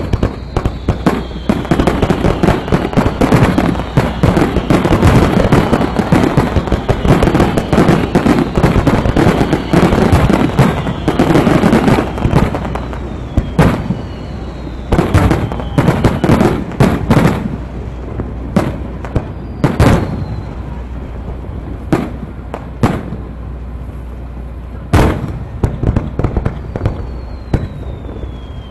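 Aerial fireworks shells bursting in the finale of a display: a dense, rapid barrage of bangs and crackles, thinning after about two thirds to separate booms a second or more apart. A few high whistles glide down in pitch among the bursts.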